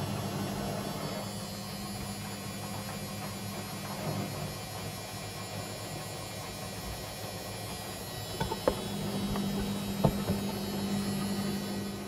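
ATLANT 45Y82 front-loading washing machine at the end of a spin, the drum still turning with a steady motor hum. A few sharp clicks come about two-thirds of the way through.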